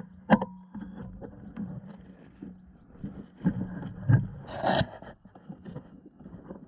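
Handling noise from a rifle scope with a camera mounted on it being swung about: irregular scraping, rubbing and small knocks over a low steady hum, with a louder rustling scrape about four and a half seconds in.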